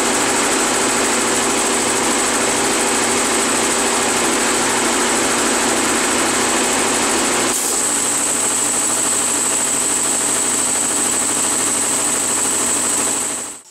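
Electric-motor-driven two-cylinder V air compressor pump running steadily and loudly, the noise mostly from its intake and valves. Its sound changes about seven and a half seconds in, and it stops abruptly near the end.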